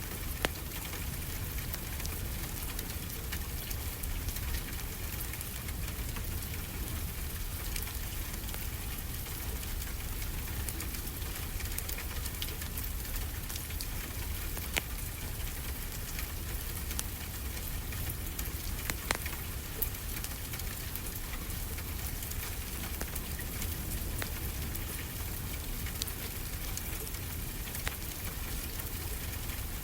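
Steady rain falling on a glass roof and walls, mixed with the soft crackle of a wood fire in a fireplace, with scattered small pops and snaps.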